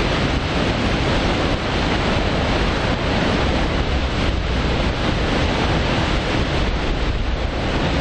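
Düden Waterfall pouring over its rock edge in a loud, steady rush of water, the falls swollen with floodwater after a heavy downpour.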